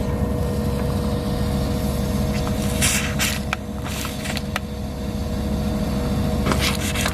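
A steady machine hum with a constant whine over it, broken by short hisses about three seconds in and again near the end.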